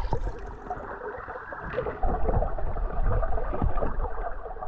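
Muffled gurgling and low rumbling of creek water heard through a submerged camera microphone, with a few soft knocks as a hand reaches in among the stones for a small gold nugget.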